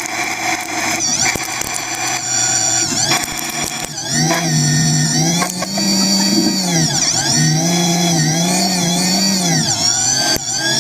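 CNC machine tool running: a motor whine made of several tones that glide up and down in pitch again and again, getting louder about four seconds in.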